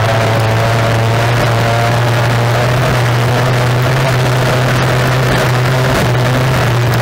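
Racing tunnel boat's outboard engine running steadily at high speed, heard from onboard, with a rush of wind and water noise on the microphone.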